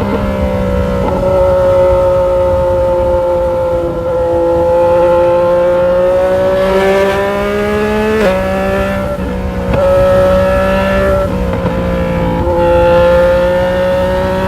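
Yamaha Tracer 900 GT's inline three-cylinder engine running at a steady cruise under light throttle, its note slowly sagging and rising, with a few sudden steps in pitch as gears are changed. A low rumble of wind and road noise runs underneath.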